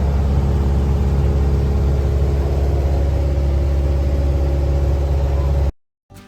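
Piper Cherokee 160's four-cylinder Lycoming engine and propeller droning steadily in cruise, heard inside the cabin. The drone cuts off suddenly near the end.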